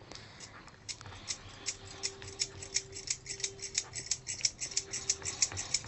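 Quick, even clicking of a utensil against a bowl as honey and burnt banana-leaf ash are beaten together into a thick paste, about five clicks a second, starting about a second in.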